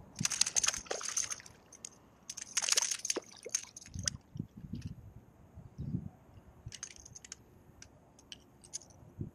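Hooked fish splashing and thrashing at the water's surface as it is landed, in two loud bursts about a second long: one right at the start and one at about two and a half seconds. Faint scattered clicks follow.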